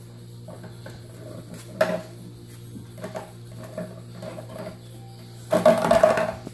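Puppies mouthing and pawing an empty plastic water bottle on a tile floor: scattered crinkles and clicks of thin plastic, with a louder burst of crackling and clattering near the end as the bottle is knocked across the floor.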